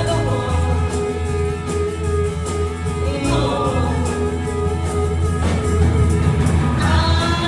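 Live band playing a song, with guitar and a steady bass line.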